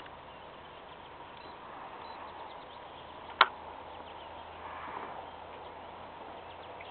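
Faint steady outdoor background with a single sharp click a little past the middle.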